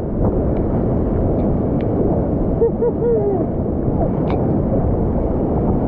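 Waterfall water rushing: a loud, steady noise, with a few faint voices calling out in the middle.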